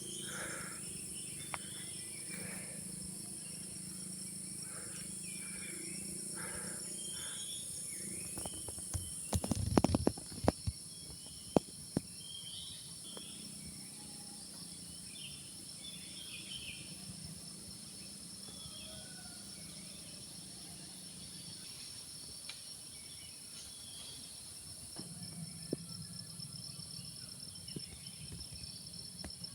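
Forest ambience: a steady high-pitched insect drone, likely crickets, runs under scattered short bird calls. A few sharp knocks and handling thumps come between about nine and twelve seconds in.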